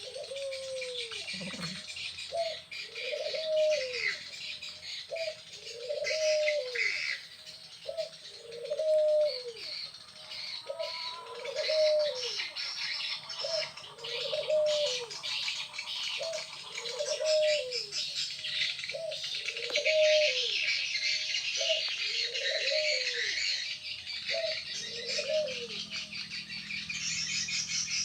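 Birds calling: a low, arched call repeated about once a second, over continuous high-pitched chirping and twittering.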